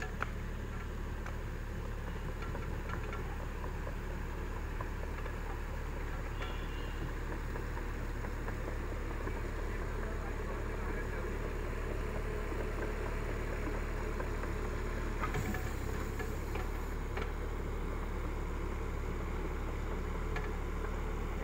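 JCB 30 Plus mini excavator's diesel engine running steadily as it digs, with a few light clicks from the working bucket and a brief hiss about fifteen seconds in.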